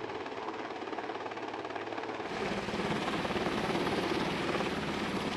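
Swiss Army Super Puma helicopter flying overhead with a slung water bucket, its rotor beating steadily; it grows louder about two seconds in as it comes closer.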